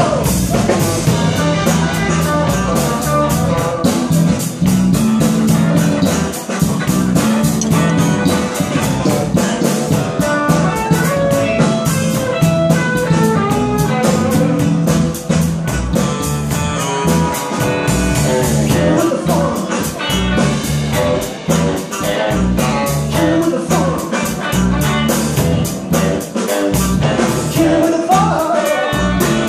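Live band playing amplified: electric guitar, electric bass and drum kit with a steady beat, and a man singing into a microphone.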